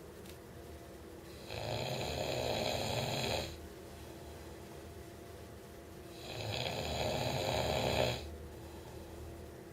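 Snoring in a slow, regular rhythm: two long snores of about two seconds each, some five seconds apart, with quieter stretches between them.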